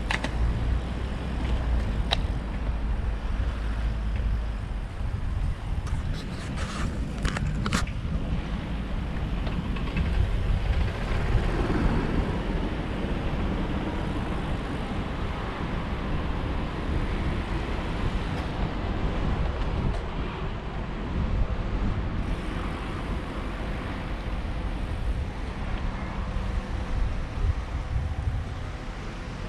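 Steady road-traffic rumble of passing cars, with a few short clicks about six to eight seconds in.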